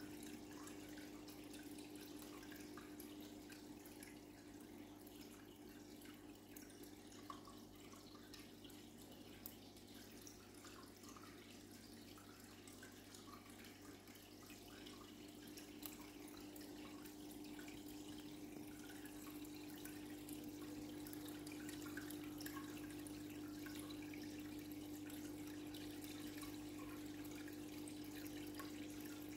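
Faint water trickling and dripping in a koi pond, over a steady low mechanical hum.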